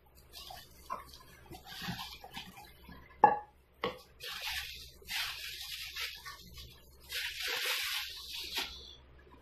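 Plastic wrapping crinkling and rustling in several spells as a kadai is pulled out of its bag. Twice a little over three seconds in there is a sharp knock, the first one the loudest sound.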